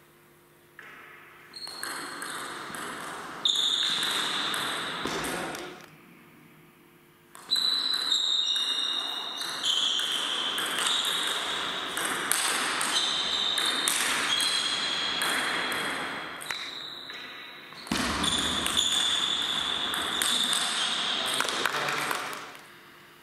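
Table tennis rallies: the celluloid ball knocked back and forth between bats and table, echoing in a large hall, with high squeaking tones through the play. Play comes in stretches broken by short pauses, one about six seconds in and another near the end.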